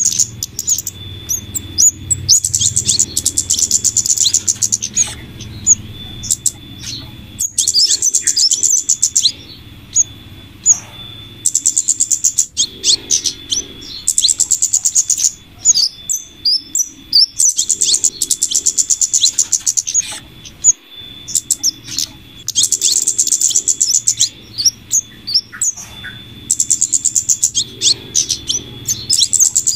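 Bird-lure recording of flowerpecker calls mixed with female scarlet minivet calls: rapid, very high-pitched chattering trills and chips in phrases a few seconds long that keep repeating, over a low hum.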